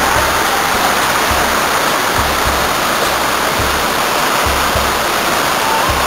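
Waterfall rushing: a steady, loud roar of falling water splashing onto rock. Brief low rumbles come through now and then.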